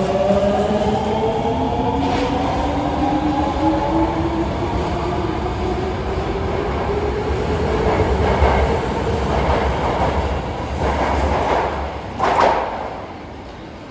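22 series 50-subseries electric train (set 62F), known as an 'odd-noise car', pulling away. Its traction motor whine climbs in several stacked tones over the first few seconds, then gives way to running and wheel noise on the rails. A sharp louder burst comes about twelve seconds in, and the sound falls away near the end.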